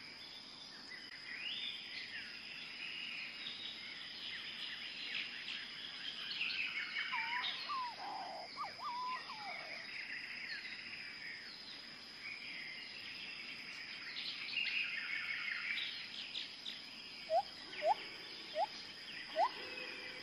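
Many birds chirping and calling at once over a thin steady high tone. Near the end comes a series of short rising calls, the loudest sounds here.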